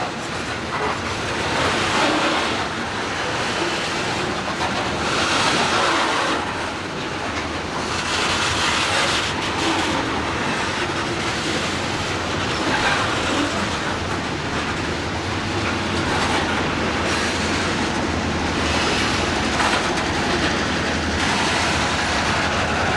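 Freight train rolling past, its car wheels clattering over the rail joints in a steady, repeating rhythm.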